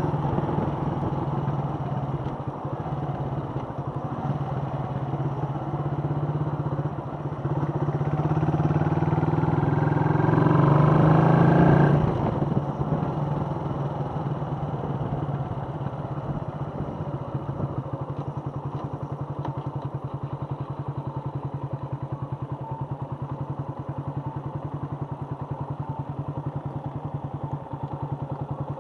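Suzuki Volty's air-cooled 250 cc single-cylinder engine, heard from the rider's seat. It pulls under throttle, rising in pitch and growing louder, until a little before halfway, when the throttle closes and the sound drops. It then settles to a steady idle with an even beat as the bike waits in traffic.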